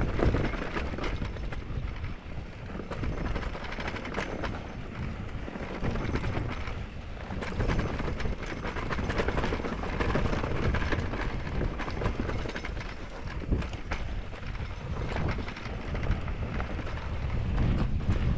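Norco Sight VLT electric mountain bike descending a rough dirt trail: tyres on dirt and a steady run of rattles and clatters from the bike over bumps and rocks, with rumbling wind on the microphone.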